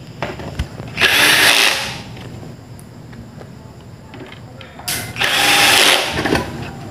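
Cordless drill-driver with an adjustable torque clutch running in two short bursts of about a second each, driving in screws.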